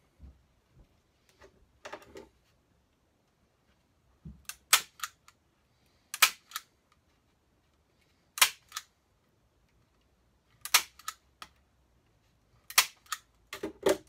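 Staples being driven through grill cloth into the wooden baffle board of a Marshall 4x12 speaker cabinet. There are six clusters of sharp cracks from about four seconds in, each a loud strike followed by one or two lighter ones, roughly every two seconds.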